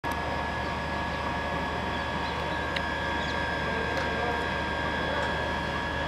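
Steady hum of a diesel-hauled passenger train standing at a platform: a low drone with a few steady high whining tones, and a couple of faint clicks.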